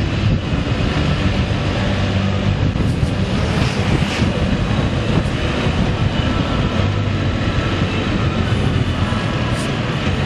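A vehicle running steadily on the road: a low engine hum under constant rushing wind and road noise.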